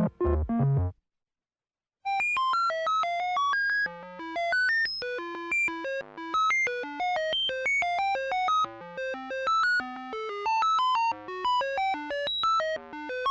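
Synthesized computer-like electronic tones: a run of low-pitched notes that cuts off about a second in, a second of silence, then a rapid stream of short beeps jumping randomly in pitch, several a second, over a faint steady low drone.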